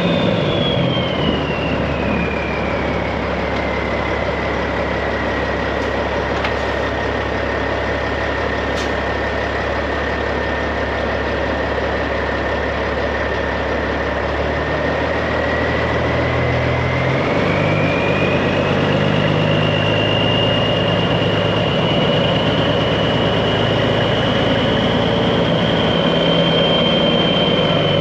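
Straight-piped Peterbilt 389 semi truck's diesel engine running. Its low note shifts partway through, and a high whistle falls in pitch over the first few seconds, holds steady, then rises again.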